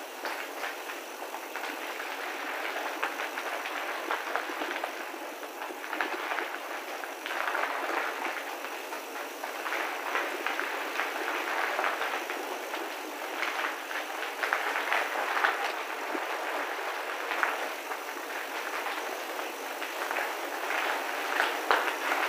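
Bicycle tyres rolling over a rough unpaved path, with a steady rumble and many small rattles and clicks from the bike, echoing inside a tunnel.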